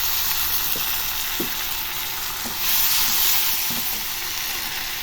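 Chopped onions and spices sizzling in hot oil in a kadai, a steady frying hiss that swells louder for about a second near the middle. A few light ticks of a spatula stirring against the pan.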